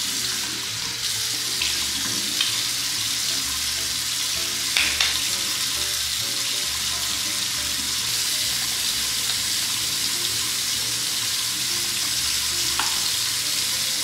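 Bathroom sink tap running steadily while a face is washed under it, with a few short splashes.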